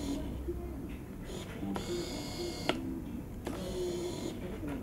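Autofocus motor in a Saker Falcon lens adapter driving the focus of a Tamron AF 70-300mm Di lens. It whirs twice, each burst about a second long, as the lens racks its focus.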